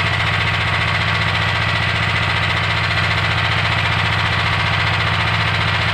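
Small fishing boat's engine running steadily with a fast, even beat.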